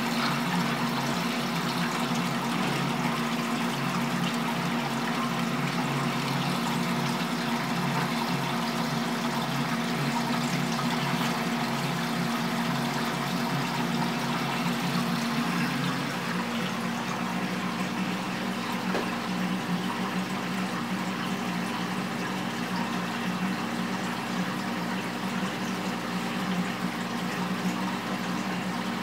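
Aquarium water circulation: a steady rush of running water with a low hum, whose tone changes about halfway through.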